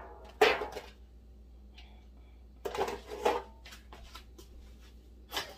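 Dishes, containers and utensils knocked and set down on a kitchen counter in a few scattered clacks: a sharp knock about half a second in, two more around three seconds in, and another near the end.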